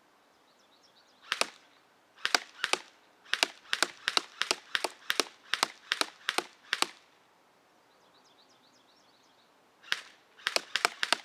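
Airsoft GI G4-A5 airsoft electric rifle firing quick single shots at a cardboard box target, each a sharp crack: about fifteen in a run, a pause of about three seconds, then another five. The gun's battery is nearly flat.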